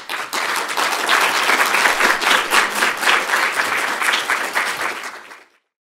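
Audience applause, a dense steady patter of many hands clapping, which dies down near the end and then cuts off.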